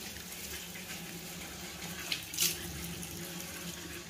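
Bathroom sink tap running, the water splashing over hands and a bar of soap held under the stream to wet it, with a brief louder splash a little past two seconds in.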